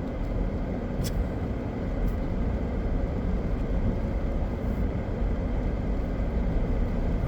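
Steady low rumble of a car driving, heard from inside the cabin, with a couple of faint clicks about a second and two seconds in.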